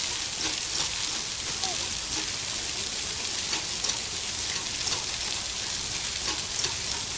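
Outdoor fountain water splashing and trickling over stone basins onto wet paving: a steady hiss with a fine patter of drops.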